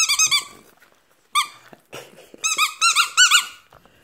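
Rubber squeaky dog toy squeezed in quick runs of short, high squeaks: a few at the start, a single one a little over a second in, and a longer run in the second half.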